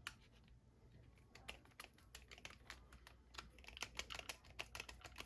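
Faint, quick small clicks and ticks, sparse at first and coming thick and fast after about a second and a half: a screwdriver working the screws of a Penn 320 GT2 fishing reel during reassembly.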